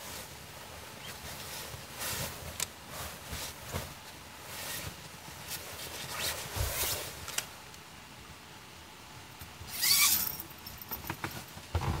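Scattered handling noises: light clicks and rustles, with one louder brief rustling swish about ten seconds in.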